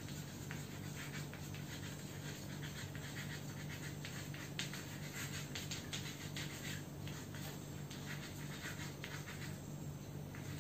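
Chalk scratching and tapping on a blackboard as words are written, in many short, irregular strokes, over a steady low hum.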